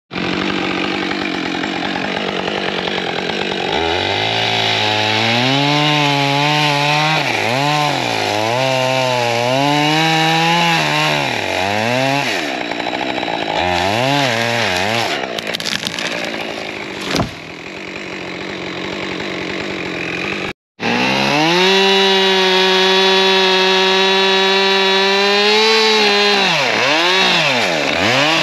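Husqvarna two-stroke chainsaw cutting into a standing tree to fell it, its revs rising and falling over and over as the cut goes in. After a momentary break about two-thirds in, it is held at steady high revs through the cut, then eases off and revs again near the end.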